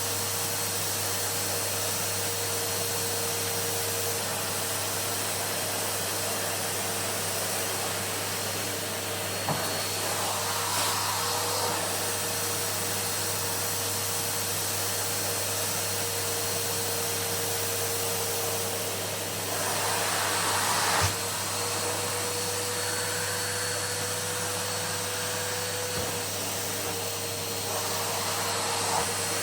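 Numatic tub vacuum cleaner running steadily with a constant motor hum and hiss. The hiss swells briefly twice, and there are a few light knocks.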